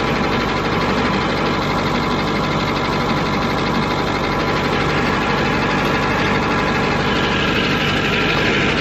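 Antique Brockway truck's Cummins diesel engine running steadily.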